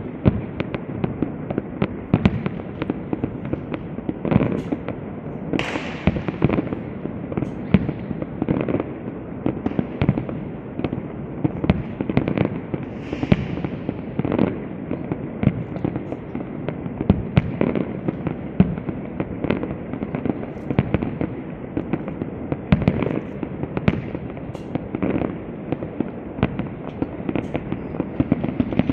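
Aerial fireworks display by Pirotecnia Zaragozana: a continuous run of shell launches and bursts, bangs following one another several times a second, with a few hissing streaks, about five seconds in and again near the middle.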